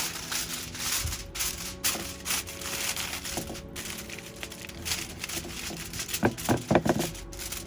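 Crinkling and rustling with irregular clicks and knocks as the brownie pan is covered up to hold in the steam and heat, with a few short pitched sounds near the end.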